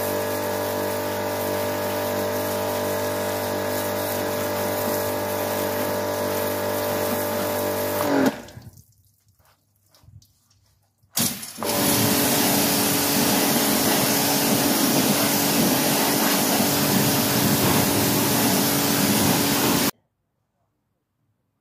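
Pressure washer running and spraying water into a car's wheel arch, a steady motor-pump hum under the hiss of the spray. It stops about eight seconds in, leaving only water dripping, starts again about three seconds later, and cuts off suddenly near the end.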